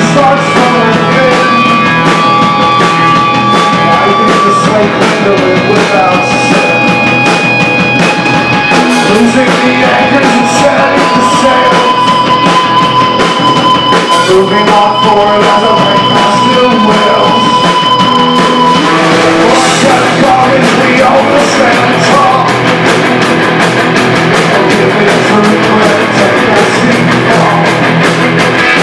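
Live rock band playing: electric guitars, bass and a full drum kit. Long held notes ring out over the band for the first few seconds and again through the middle.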